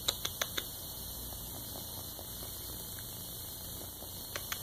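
Quiet room tone: a steady hiss and low hum, broken by a few small clicks just after the start and a couple more near the end.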